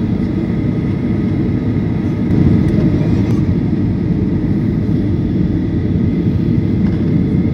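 Steady cabin noise of a jet airliner in flight: a loud low rumble of engines and rushing air, with a faint steady high engine whine above it, swelling slightly about two and a half seconds in.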